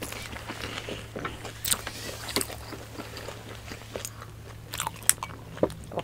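Close-miked biting and chewing of a crispy fried vegetable spring roll (lumpiang gulay): irregular sharp crunches, a few louder ones around the middle and near the end.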